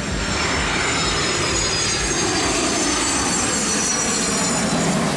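Twin-engine business jet on low final approach, its jet engines running with a steady rushing noise and a high whine that falls steadily in pitch.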